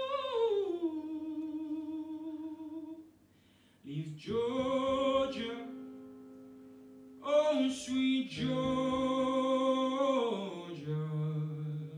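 A man singing a slow song to his own acoustic guitar, holding long notes with a wavering vibrato. The music breaks off briefly about three seconds in, then guitar chords are strummed about four and again about seven seconds in under the held notes.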